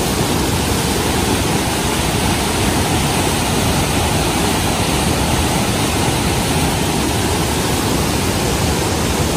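Steady roar of Niagara Falls: a loud, even rush of falling water.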